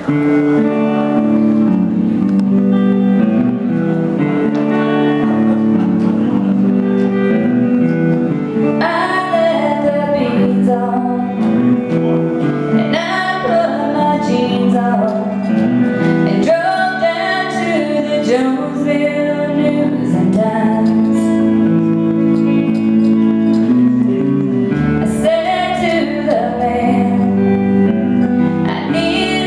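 Live country band playing a song on guitars; a woman's lead vocal comes in about nine seconds in and carries the melody from there.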